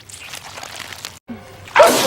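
A man's loud wet sneeze bursts out near the end. Before it comes a quieter stretch of wet, sloshing noise and a brief dropout where the loop restarts.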